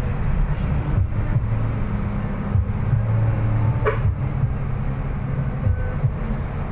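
Steady low road and engine rumble heard from inside a moving vehicle, with a brief higher-pitched sound about four seconds in.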